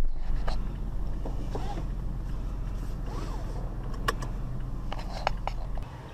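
A car engine running, heard from inside the cab as a steady low drone with a few sharp clicks. The drone stops near the end.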